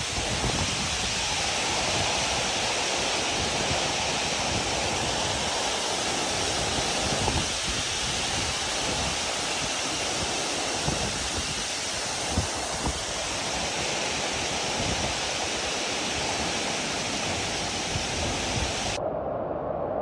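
Steady rushing of a waterfall pouring into a rock pool, with a few brief thumps around the middle. About a second before the end the rush abruptly turns duller.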